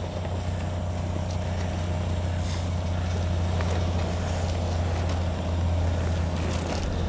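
Semi truck's diesel engine idling steadily, a low continuous drone, with a few light rustles of a heavy vinyl tarp being rolled up on gravel.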